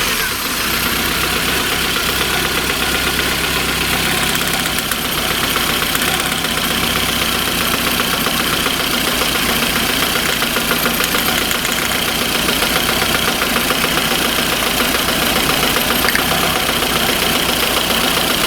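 Fuel-injected petrol car engine idling with a fast, even knock, which the mechanic traces to axial play of the camshaft.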